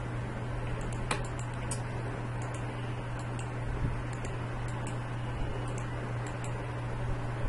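A few scattered computer mouse clicks, the clearest about a second in, over a steady low hum from the recording setup.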